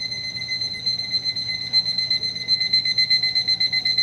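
A digital kitchen timer's alarm going off: a high electronic beep held almost without a break, the signal that the set time is up.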